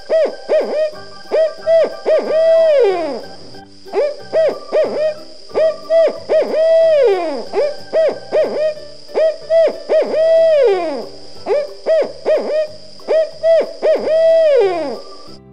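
Owl hooting: about four phrases of quick hoots, each ending in a longer hoot that slides down in pitch, over a steady high hiss.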